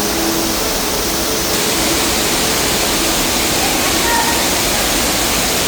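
Steady, loud rush of a waterfall, with faint voices about four seconds in.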